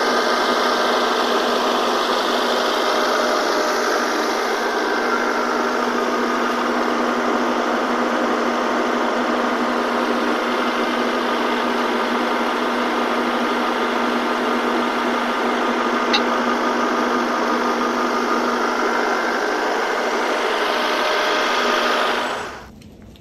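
Compact tractor's diesel engine running steadily, with one short click about two-thirds of the way through. The sound cuts off abruptly near the end.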